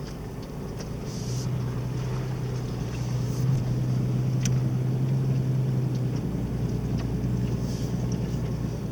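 Off-road vehicle engine running steadily, a low hum that grows louder about a second in and eases slightly near the end.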